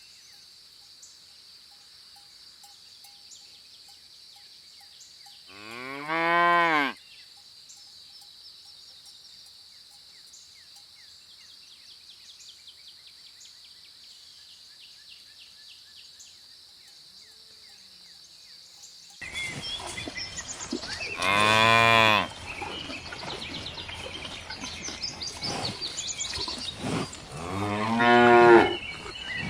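Cows mooing three times: one long moo about six seconds in, then two more near the end, each rising and falling in pitch. A steady high-pitched drone sits under the first part, and about two-thirds of the way in it gives way suddenly to a louder, noisier background.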